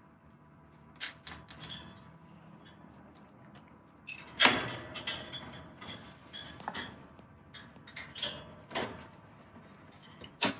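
A cat playing with a feather wand toy inside a wire pet cage: scattered knocks, clicks and rattles as the toy and the cat's paws hit the cage and its floor tray, the loudest knock about four and a half seconds in and another sharp one near the end.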